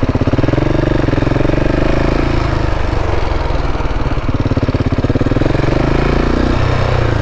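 KTM 690's single-cylinder engine pulsing under a rider on rough dirt, the revs rising and falling twice as the throttle is worked at low speed.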